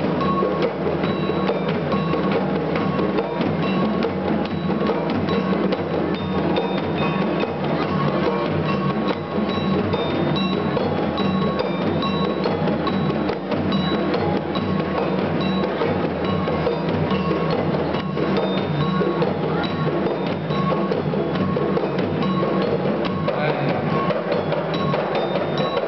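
Kompang frame drums beaten by hand in a fast, continuous interlocking rhythm, with faint high ringing tones over the drumming.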